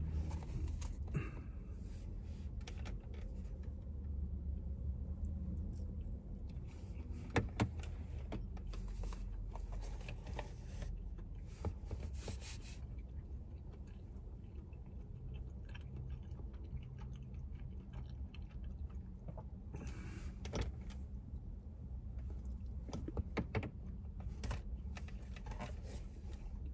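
A person chewing and biting into buffalo wings, with scattered short crunches and mouth sounds over a steady low hum inside a car cabin.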